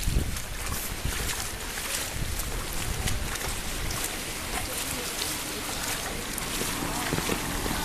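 Steady rush of lake overflow water pouring across a road in heavy rain, with wind noise on the microphone and many small sharp ticks throughout.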